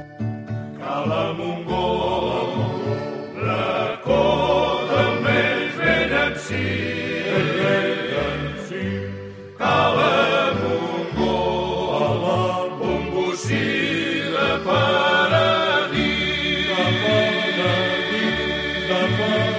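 Recorded habanera sung by a vocal group in harmony over instrumental accompaniment with a steady bass line, in full song throughout.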